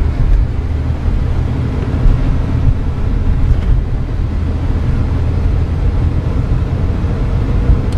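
Engine and road noise from inside a moving vehicle: a steady low rumble.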